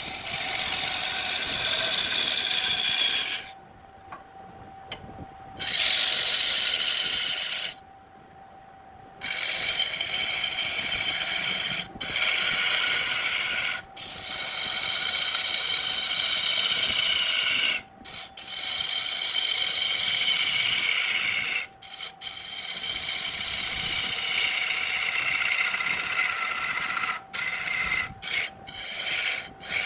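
Lathe tool cutting into a spinning burl on a wood lathe: scraping passes of a few seconds each, broken by short pauses, over a steady whine. Near the end the cutting turns into quick, repeated strokes.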